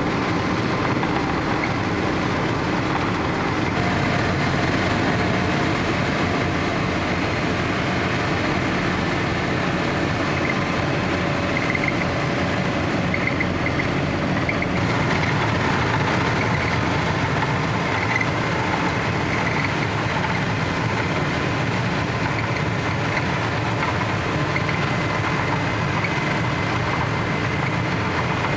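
Vögele asphalt paver running steadily while it lays asphalt, its diesel engine and feed machinery making a dense, even noise with a thin high whine coming and going.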